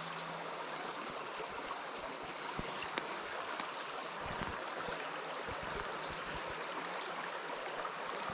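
Steady rush of a shallow, rocky stream flowing over gravel, with a few soft low thumps around the middle.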